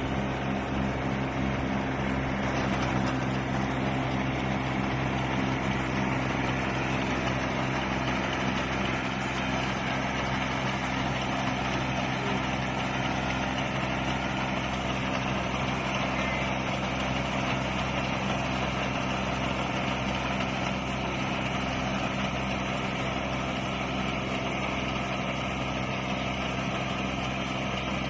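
Engine of a rice combine harvester running steadily, with an even mechanical noise over the engine drone.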